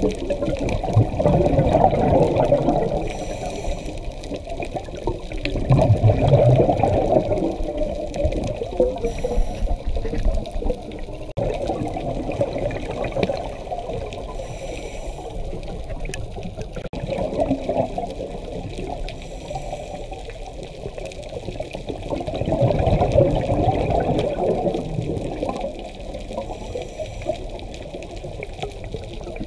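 Scuba diver breathing through a regulator underwater: a rush of exhaled bubbles about every five seconds, with a faint hiss of inhaled breath in between.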